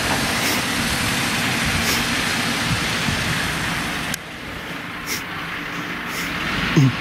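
Fire trucks running in the street, a steady engine rumble and hiss that drops suddenly about four seconds in. A short falling tone comes just before the end.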